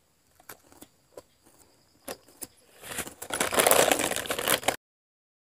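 Scattered light clicks and snaps of small hand work, then, about three seconds in, a loud rustling crackle for about two seconds that cuts off suddenly into silence.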